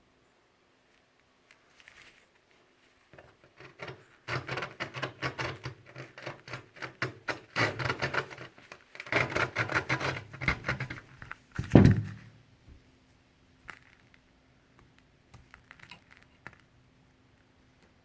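A saw cutting through the thick cardboard tube of a firecracker in rapid scratchy strokes, followed by one sharp knock about two-thirds of the way in.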